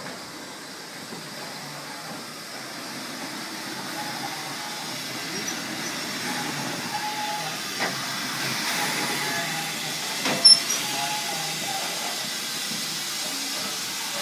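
BR Standard Class 5 steam locomotive 73096 backing slowly tender-first onto its carriages to couple up, steam hissing and growing louder as it comes close. A sharp metallic clank about ten seconds in is the loudest sound.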